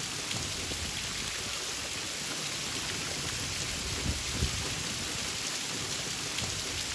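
Heavy rain pouring onto standing floodwater, a steady hiss, with a couple of low thuds about four seconds in.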